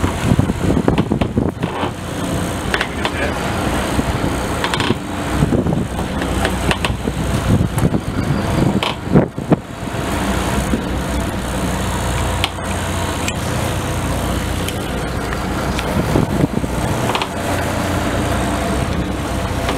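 Fishing boat's engine running with a steady low hum, under wind and water noise.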